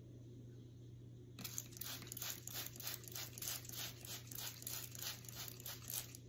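A fine-mist spray bottle pumped rapidly onto a washcloth: a quick run of short hissing sprays, about four a second, starting a second and a half in and stopping just before the end.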